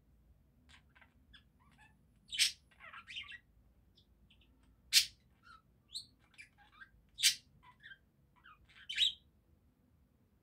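Budgerigars warbling and chattering: a string of short chirps and trills, broken by four loud sharp calls roughly every two and a half seconds.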